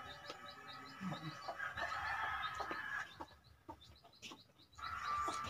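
Domestic chickens calling and clucking, with a drawn-out call about two seconds in and another starting near the end.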